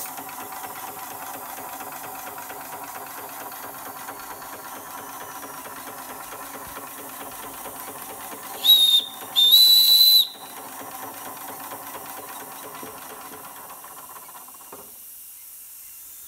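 Josef Falk 143/2 live-steam toy engine running with a steady rhythmic sound from its single cylinder and flywheel. Midway its boiler's steam whistle is blown twice, a short blast and then a longer one of about a second. Near the end the running sound stops, leaving a faint steam hiss.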